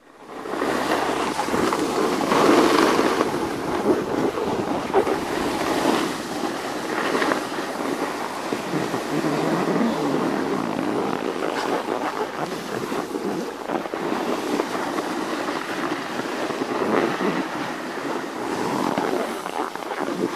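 Wind rushing over the microphone together with the steady hiss and scrape of riding downhill over packed snow, swelling and easing as the filmer turns.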